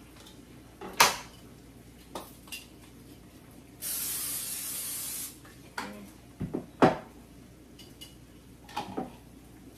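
Aerosol cooking spray hissing steadily for about a second and a half, starting about four seconds in, as the baking pan is greased so the food won't burn. Sharp clanks of kitchenware about a second in and again near seven seconds, the first the loudest.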